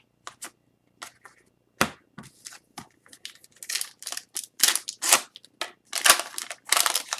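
Upper Deck hockey trading cards being handled and slid past one another: a run of short papery swishes and clicks that grows busier and louder over the second half.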